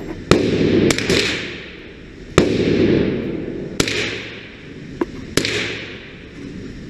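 A string of about six .22 rimfire semi-automatic gunshots fired at an irregular pace, each sharp crack followed by a ringing echo that dies away.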